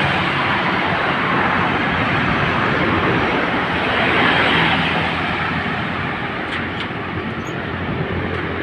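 Steady rushing wind and road noise from a vehicle on the move.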